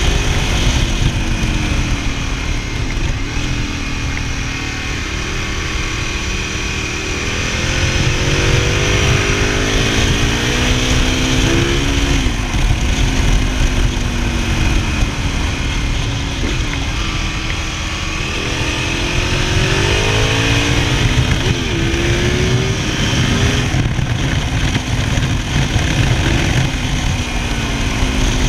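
Ducati Multistrada 1000DS's air-cooled V-twin engine under way, the revs climbing and dropping back several times as the rider accelerates and changes gear. Wind rushes over the microphone throughout.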